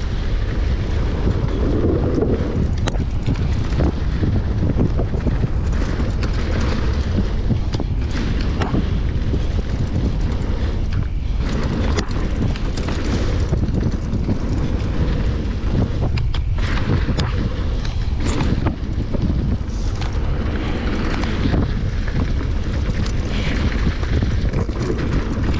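Wind buffeting the microphone of a helmet camera on a mountain bike rolling downhill over a dirt trail, with many short clicks and knocks from the tyres and the bike rattling over rough ground.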